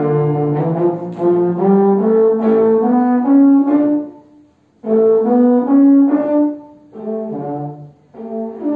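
A melody played on an upright valved brass horn with piano accompaniment. It is a run of held notes that breaks off for about half a second just past four seconds in, then carries on to a last note near the end.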